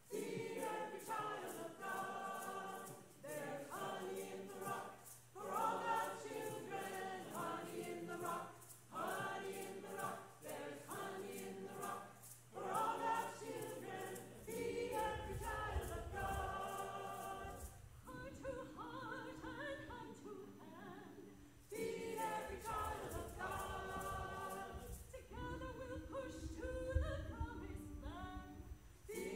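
A group of voices singing together in a church service, phrase by phrase with short breaks between phrases.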